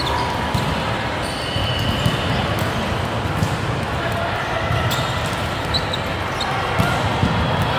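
Volleyballs being hit and bouncing on the gym floor: sharp slaps at irregular intervals, a handful over several seconds, over steady chatter of players.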